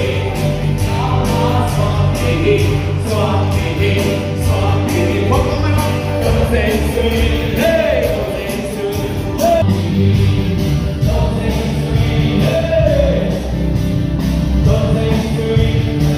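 Christian worship song: voices singing together over a band, with a strong bass and a steady drum beat.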